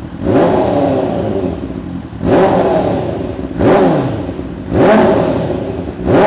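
MV Agusta Brutale 1090's inline-four engine with a full-system exhaust, revved in four quick throttle blips that each rise and fall in pitch, with a fifth starting at the end. Between blips it drops back to idle.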